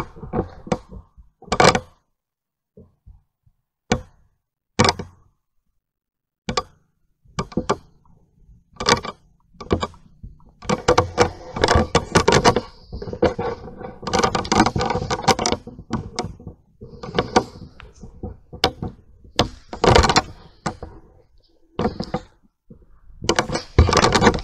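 Camera and tripod handling noise: a few scattered knocks and thumps with quiet gaps between, then dense clattering and rustling from about ten seconds in as the rig is moved and carried over grass.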